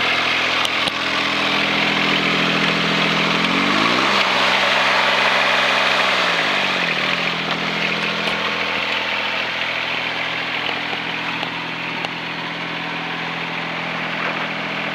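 SDLANCH SDLE20 mini excavator's small engine running steadily. Its note shifts in pitch for about three seconds in the middle, then settles back.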